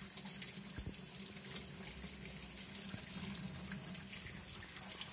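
Faucet running steadily into a utility sink, the stream splashing over a baby squirrel held under it and the hands washing it, with a faint knock about a second in.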